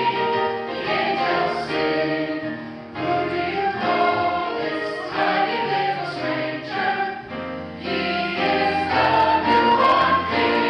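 Church choir singing in harmony, in sustained phrases with brief breaks about three and seven seconds in.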